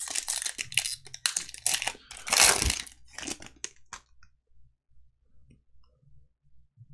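A baseball card pack's wrapper torn open and crinkled by hand, with several sharp rips for about four seconds, the loudest a little over two seconds in.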